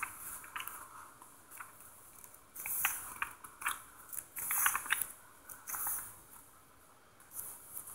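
Pages of a hardcover comic-book collection being turned and handled: three short bouts of quiet paper rustling, with a few soft clicks.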